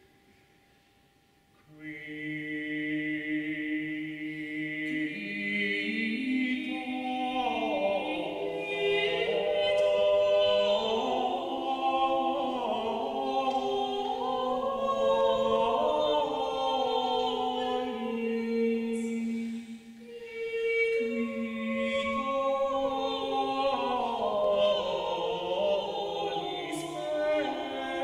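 Mixed choir singing Renaissance polyphony a cappella. After a brief silence, voices come in on long held notes, and further parts enter one after another over the next several seconds, building into interweaving lines.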